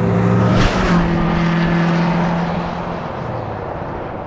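A 6.7 Power Stroke V8 turbodiesel truck fitted with a retrofit 2015-style turbo, running as the truck drives: a steady engine drone that eases off a little about three seconds in. A short hiss comes under a second in.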